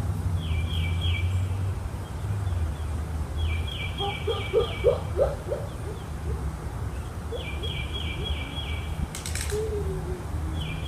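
A songbird repeating a short phrase of four or five quick falling notes about every three to four seconds, over a steady low rumble. A sharp click comes about nine seconds in.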